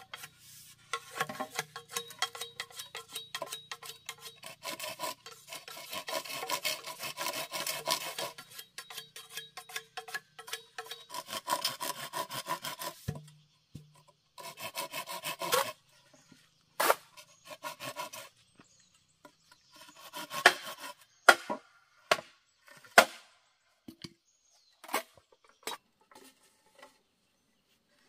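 Bamboo being worked by hand with a blade. About twelve seconds of quick rasping strokes come first, then a shorter run, then a string of separate sharp knocks of the blade on bamboo.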